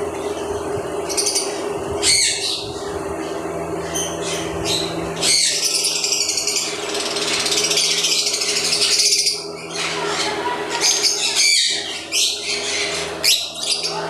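A roomful of caged lovebirds chattering and screeching, with many short, shrill, overlapping calls, over a steady low hum.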